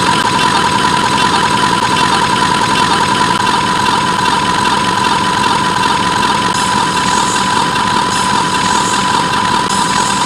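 Loud, steady static-like noise with a constant high beep tone running through it, unchanging throughout: a harsh sound effect.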